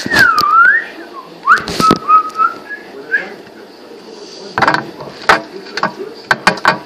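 Someone whistling a few gliding notes over the first three seconds, then a hand pressing and squeezing a large lump of stretchy slime, making a quick run of sharp, sticky pops and clicks.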